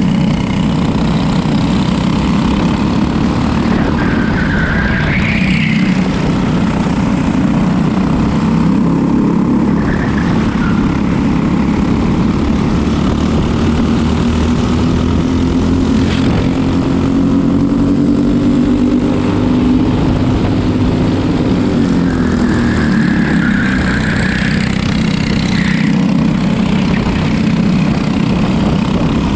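Racing kart's engine running hard on track, its pitch rising and falling continuously as it revs up and drops back.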